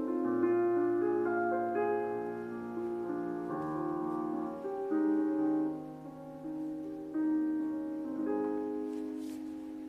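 Slow piano music, held notes and chords changing every second or two.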